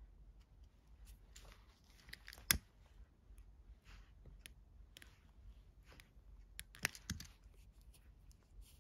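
Faint handling of thin nylon paracord: soft rustles and small clicks as the cord tip is rolled and pinched between the fingers. A single sharp click stands out about two and a half seconds in, and a few more come close together about seven seconds in.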